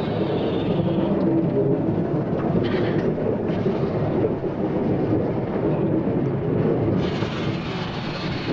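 Steam locomotive 33.132 moving past at close range: a dense rumble and clatter from its wheels and running gear, with a louder hiss starting suddenly about seven seconds in.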